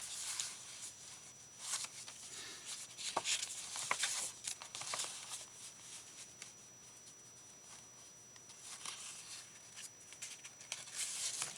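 Craft paper being handled, rustling and crinkling in bursts with a few light taps, busiest early and again near the end with a quieter stretch in between.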